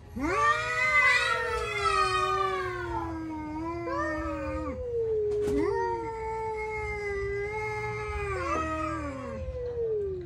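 Cats caterwauling: long, drawn-out yowls that slowly fall in pitch, one after another with short breaks, the warning cries of a cat in a standoff with a strange cat.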